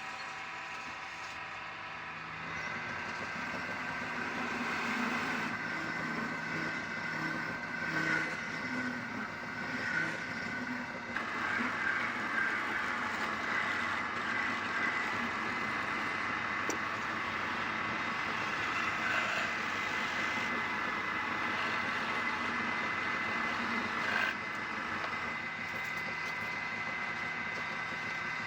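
Electric wood lathe running with a steady whine over a rushing noise, getting louder about two seconds in and again near the middle.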